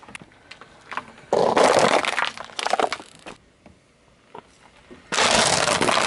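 Objects breaking under a car tyre: two loud bursts of crunching and cracking, the first about two seconds long starting a second in, the second starting near the end.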